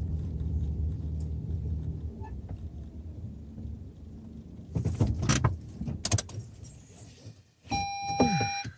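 A car's engine running, its hum fading out over the first couple of seconds. Sharp clicks and knocks follow about five and six seconds in, and a short beep sounds near the end.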